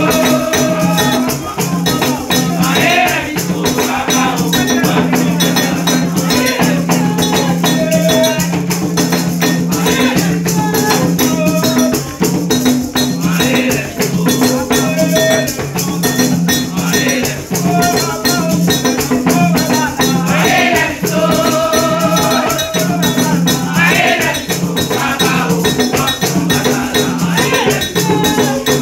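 Haitian Vodou ceremonial music in the Nago style for Ogou: hand drums and a shaken rattle keep a fast, even beat, with voices singing phrases over it.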